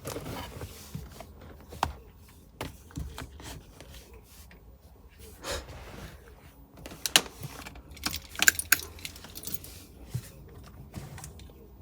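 Scattered metallic clinks, rattles and sharp clicks from hands working with tools and wiring in a car, loudest in a quick cluster about seven to nine seconds in.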